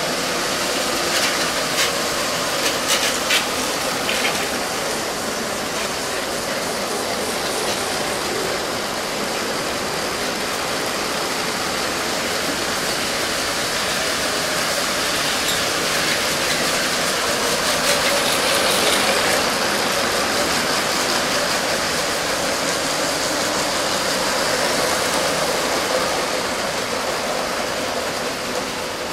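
Remote-controlled LEGO trains running on plastic LEGO track: a steady whirring of small electric motors and rolling wheels, with a few sharp clicks in the first few seconds.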